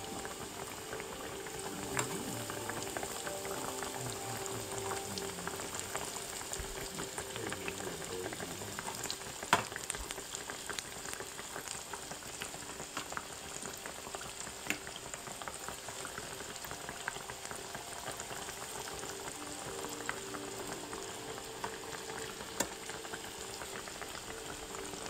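Breaded chicken frying in hot oil: a steady bubbling sizzle with scattered crackles and pops. The sharpest pop comes about nine and a half seconds in.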